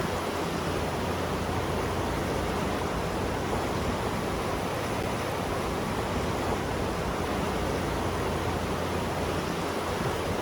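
River current running steadily: an even, unbroken rush of flowing water.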